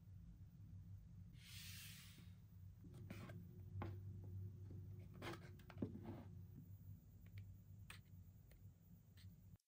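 Faint handling of a paper activity book and its card-backed packaging over a low steady hum: a short rustle about a second and a half in, then a run of light clicks and taps in the middle.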